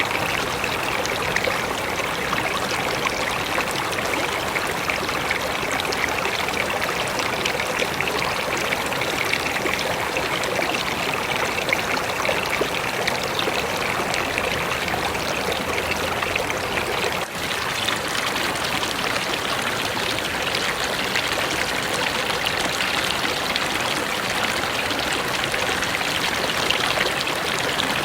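A river flowing: steady, continuous rushing and trickling water. A brief drop a little past the middle, after which the rush is slightly brighter.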